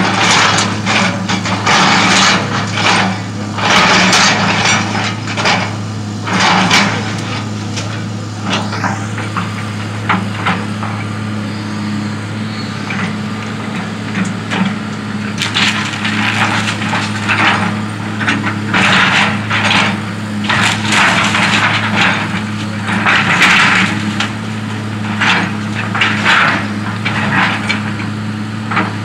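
Hitachi tracked excavator's diesel engine running steadily while its bucket smashes through the wooden walls of a house, with repeated bursts of cracking and splintering timber. The breaking comes in clusters, thinning out in the middle and picking up again from about halfway through.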